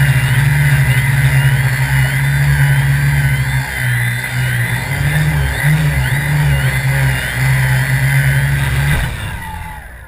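Quadcopter's electric motors and propellers humming steadily, the pitch wavering briefly as the motor speeds change, then dying away about nine seconds in.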